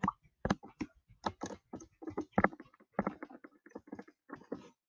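Typing on a computer keyboard: quick, irregular key taps, about four a second, as numbers are entered.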